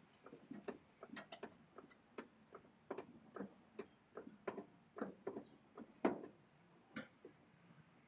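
Hydraulic floor jack being pumped under a rear differential, lifting the axle through the 4-link suspension's travel: a run of faint, uneven clicks and knocks from the jack and the suspension joints, with a sharper knock about six seconds in.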